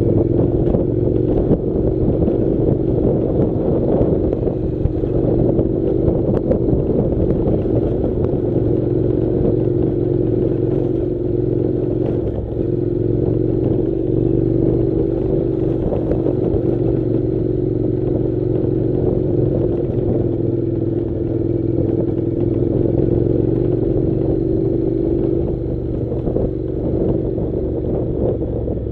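Honda NC700 motorcycle's parallel-twin engine running steadily as it is ridden, the engine note easing off near the end.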